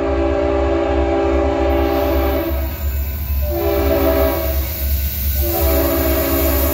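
Diesel locomotive's multi-note air horn blowing for a road grade crossing: a long blast that stops about two and a half seconds in, a short blast, then another long blast starting near the end, the end of the standard long-long-short-long crossing signal. A steady low rumble of the approaching train runs underneath.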